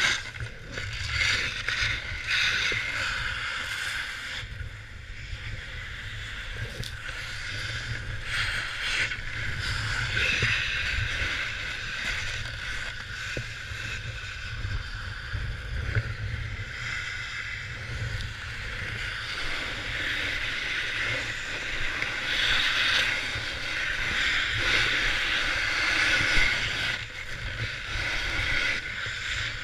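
Snowboard sliding and carving over packed snow: a steady scraping hiss that swells and fades as the edges bite, over a low rumble of wind buffeting the action-camera microphone.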